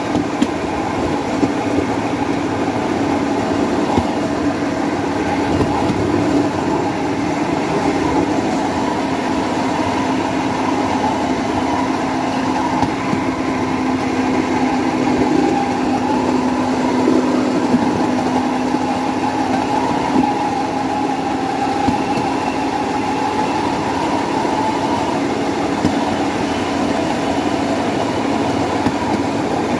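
Motorodillo, a handmade rail trolley driven by a motorcycle engine, running steadily along the track: the engine's steady drone mixed with the rumble of its wheels on the rails, with a few faint clicks.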